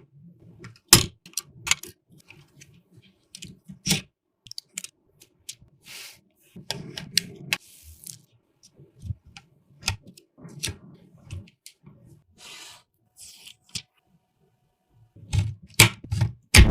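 Scattered clicks, taps and short rustles of packaging and parts being handled, with a longer crinkling rustle about eight seconds in.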